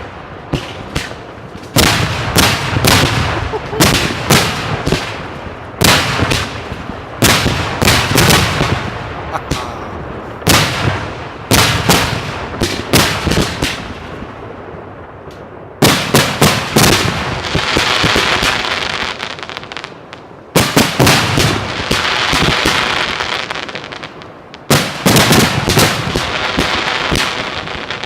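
Large professional fireworks display heard from about 50 m from the firing site: clusters of sharp shell bursts come about every two seconds, with two longer stretches of dense crackling past the middle.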